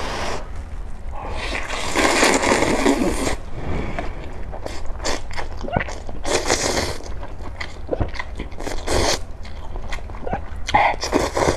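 A person slurping glass noodles (sweet-potato vermicelli in clam broth) in four long slurps, the first and longest lasting about two seconds, with chewing and small wet mouth clicks between them.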